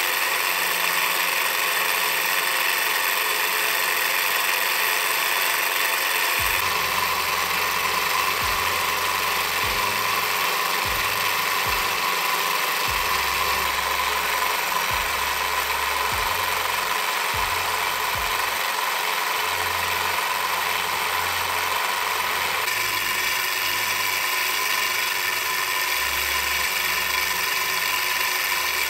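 Small four-cylinder V-type model Stirling engine running steadily at about 1,400 rpm, its pistons and flywheel giving an even, fast mechanical running sound.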